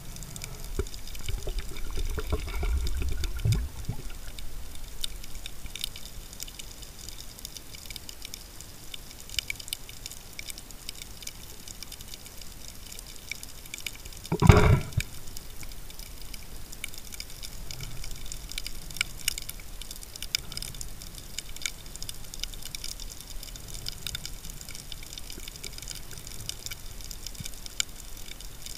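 Underwater sound as picked up by a diving camera: a steady crackle of scattered faint clicks, with a low rumble for the first few seconds and one loud, brief rush about halfway through.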